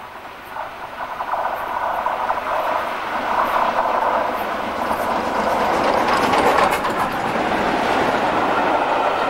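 Main-line steam locomotive with a train of coaches approaching at speed and running past, growing steadily louder. It ends in the clatter of the coaches' wheels going by.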